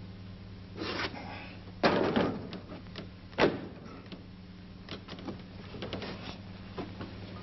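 Handling noises from an old film soundtrack: a brief rustle, then a louder scraping rattle about two seconds in, a single sharp knock a little later, and a few light clicks, over a steady low mains hum.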